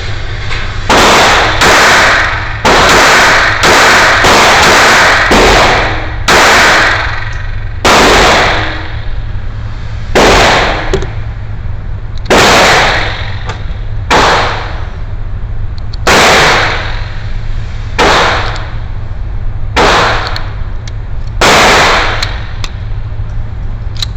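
A string of pistol gunshots, each a sharp crack with a short echo. They come close together in the first few seconds, then about one every two seconds, over a steady low rumble.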